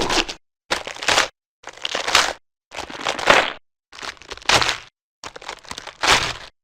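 Stock gore sound effects played back to back: about six short, wet-sounding crunches and crushes of flesh and bone, each under a second long and cut off by a moment of dead silence before the next.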